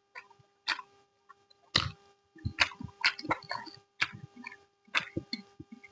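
Eating sounds close to the microphone: chewing and mouth clicks, sharp and crackly, about once a second, with a faint steady electrical hum underneath.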